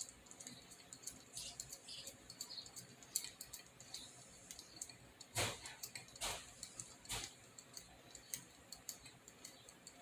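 Small plastic parts of an RC car wheel being handled, with scattered light clicks and ticks and three louder knocks a little under a second apart about halfway through.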